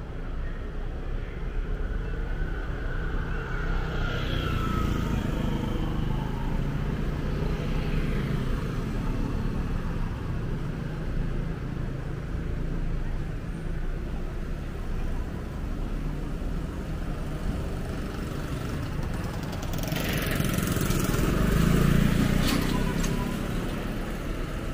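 Street traffic running steadily, with a motor vehicle passing close that grows louder about twenty seconds in and then fades away.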